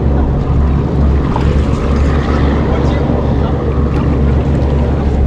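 Steady low wind rumble on the microphone over sea water lapping at a rocky shore.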